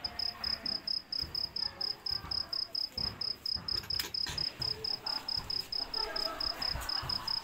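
Cricket chirping in a steady, even rhythm, about four short high chirps a second.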